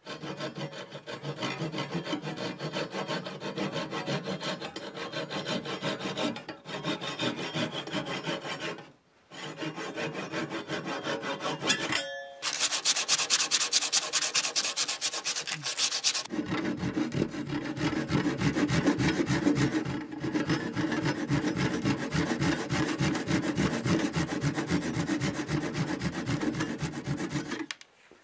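Hand saw cutting wooden pegs flush with a wooden box side, in quick rhythmic strokes with short pauses. Near the middle there is a brief ringing note, then a run of brighter strokes. In the second half the strokes turn lower and heavier, rubbing on the wood.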